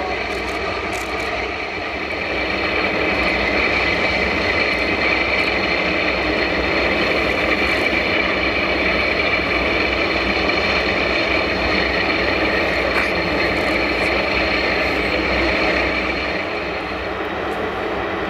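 Boeing 747-400 jet engines running during pushback: a steady high turbine whine over a broad rumble, getting louder about three seconds in and easing off again near the end.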